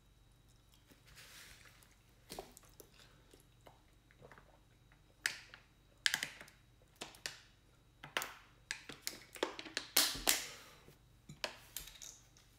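Crackles and clicks of a thin plastic water bottle being opened, squeezed and drunk from, growing denser after about five seconds, with a louder knock about ten seconds in.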